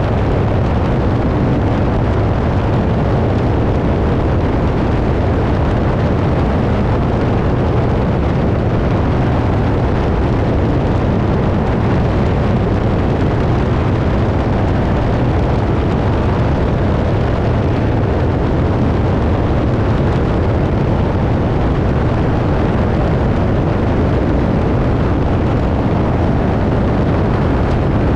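Biplane's engine and propeller running steadily in cruising flight, a loud low drone mixed with the rush of wind over a tail-mounted camera.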